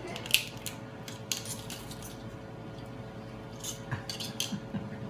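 Steel knife and fork clicking and scraping on a teppanyaki iron griddle as a shrimp is cut from its shell. There are sharp clicks, the loudest about a third of a second in, and a quick run of them near the end, over a steady hum.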